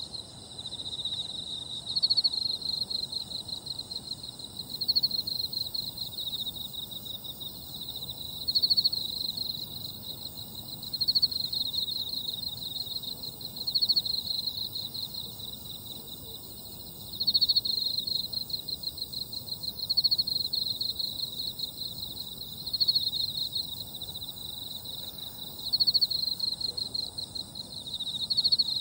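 A summer-night insect chorus in grass. One loud insect repeats a high, pulsed trill about every three seconds, each phrase starting strong and fading away, over steady high-pitched buzzing from other insects.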